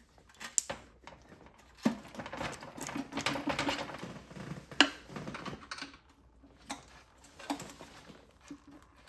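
Irregular metal clicks, taps and scraping of a screwdriver and hand tools working in the opened crankcase of a Predator 212 small engine, with sharper knocks about two and five seconds in.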